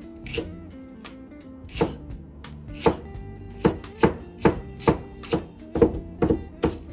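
Kitchen knife chopping on a cutting board: a dozen or so chops, spaced out at first and coming quicker in the second half.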